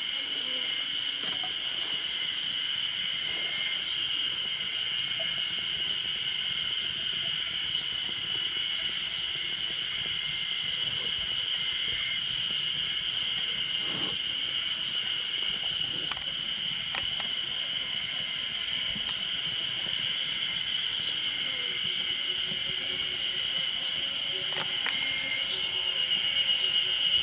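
Insects droning steadily at a high pitch, with a few sharp clicks scattered through.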